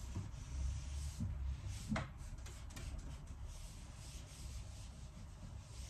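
Cloth wiping and rubbing over a furniture surface while dusting, with a light knock about two seconds in and a few small clicks after it.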